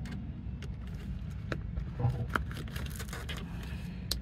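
Sneaker being worked apart by hand: light scrapes and clicks as the glued sole is pulled from the upper, a couple sharper near the middle, over a steady low hum.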